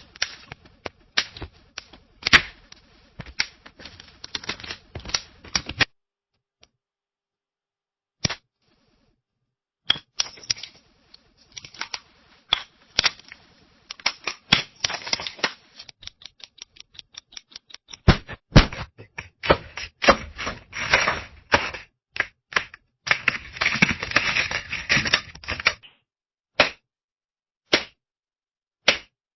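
Photographers' flashbulbs popping: many sharp clicks and pops in irregular bursts, thickening into a dense rapid volley in the middle, with a short lull and a few lone pops near the end.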